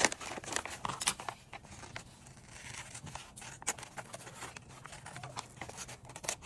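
Scissors cutting through paper pattern, with the sheet rustling as it is handled: a string of irregular snips and crinkles, busiest in the first second or so.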